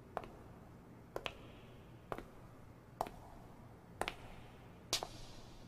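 Sharp taps about once a second, six in all, two of them doubled, over a low steady hum.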